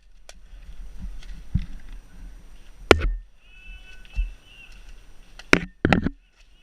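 Sharp clicks and knocks of a magazine change on a KWA KM4 airsoft rifle: one about three seconds in, then two close together near the end.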